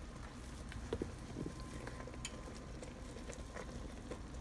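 Pot of blackberry juice at a low boil, a faint steady bubbling with scattered small pops, while dumpling dough is dropped in by hand.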